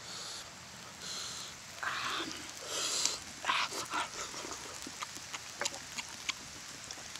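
Eating cooked frog by hand, with wet mouth noises. First come five short breathy sucking sounds, about one every three-quarters of a second. From about four seconds in they give way to quick, irregular lip-smacking and chewing clicks.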